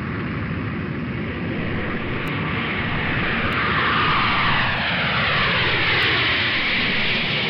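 Propeller airplane engine running steadily and growing louder; from about two and a half seconds in its pitch slides down, as when a plane flies past.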